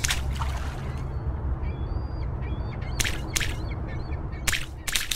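Sound-designed logo sting: a deep steady rumble under several sharp swishes, around three seconds in and again near the end, with a few short high bird-like chirps around two seconds in.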